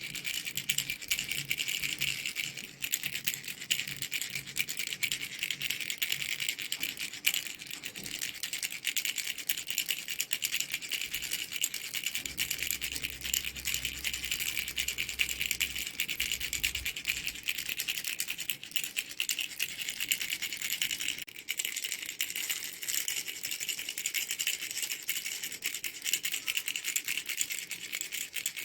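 A mango-shaped baby rattle being shaken steadily: a fast, dense rattling with brief breaks about 3 and 21 seconds in.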